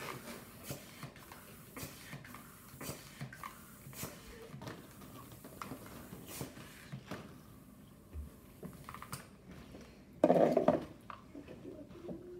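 Hand pump inflating a long latex twisting balloon: repeated short pump strokes with rubbery squeaks and clicks. A brief louder sound about ten seconds in.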